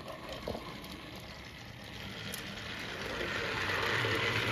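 Small battery-powered motor of a toy train set whirring, growing louder over the last couple of seconds.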